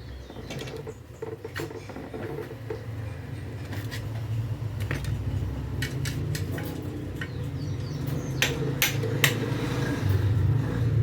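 Scattered sharp metallic clicks and taps, irregular and a second or so apart, as tools and metal parts of a starter motor are handled while its drive is worked off the shaft. A steady low hum runs underneath.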